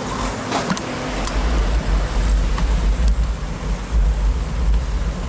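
Wind rumbling on the microphone of a bicycle-mounted camera while riding, over road traffic noise, with a few light clicks.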